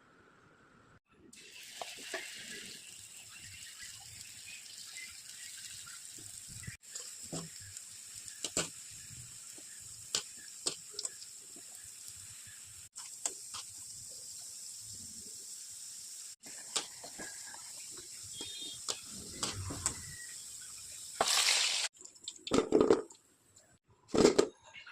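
Kitchen cooking sounds: a steady watery hiss with scattered clicks and clinks of utensils, ending in a few louder knocks and scrapes.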